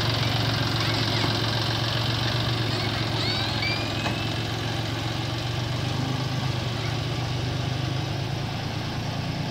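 John Deere 5036 tractor's diesel engine running steadily at low revs while it tows a full 5000-litre water tanker slowly over rough grass.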